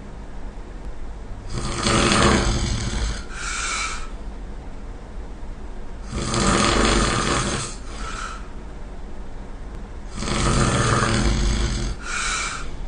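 A person snoring loudly in a regular rhythm: three rasping snores about four seconds apart. Each is followed by a shorter, breathier sound.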